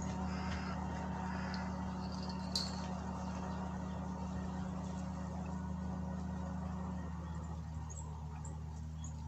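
A steady low mechanical hum made of several even tones. It drops slightly in pitch and level about seven seconds in. Faint high chirps and a single sharp click come about two and a half seconds in.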